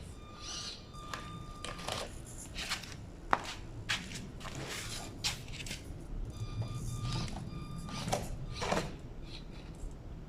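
Small RC rock crawler's electric motor whining in short spurts at low throttle, a steady high-pitched tone that starts and stops, with clicks and scrapes as the tiny crawler's tyres and chassis climb over the track.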